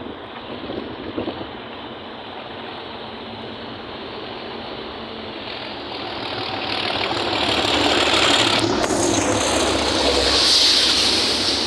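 English Electric Class 37 diesel locomotive running under power, its engine growing steadily louder from about six seconds in and loudest near the end as the train draws close.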